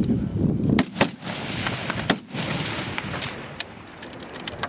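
Hunting rifle shots on a range: a sharp report about a second in and another about a second later, followed by fainter cracks.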